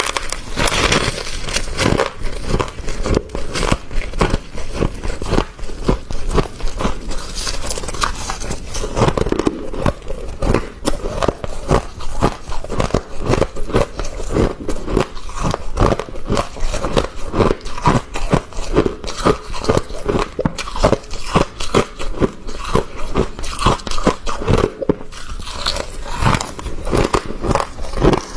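Soft, crispy freezer frost being crunched and scraped, a quick run of repeated crunches a few times a second.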